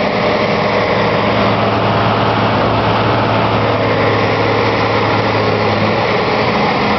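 Caterpillar Challenger rubber-track tractor's diesel engine running at a steady idle.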